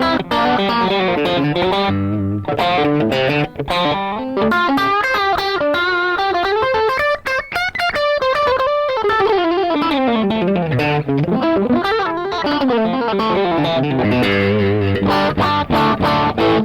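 Electric guitar played through a Rad Custom Shop Valkyrie overdrive pedal at a light, transparent drive with the gain turned up and a little extra treble: fast single-note runs and arpeggios that climb in pitch, fall back about halfway through, then climb again.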